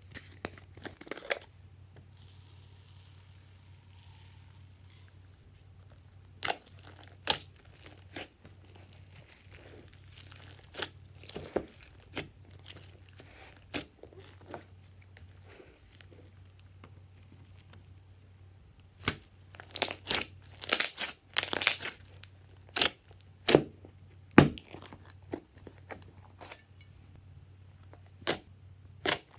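Glossy slime being pressed and kneaded by hand, giving scattered sharp popping and crackling clicks, thickest about two-thirds of the way through.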